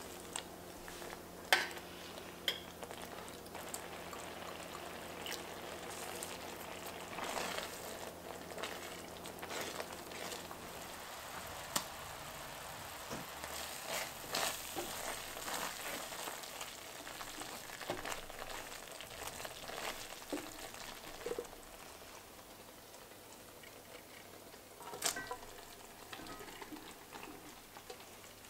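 Thick roasted red pepper sauce bubbling at a simmer in an enameled cast-iron pot while a wooden spatula stirs it, with scattered sharp clicks of the spatula against the pot. A low hum underneath stops about a third of the way in.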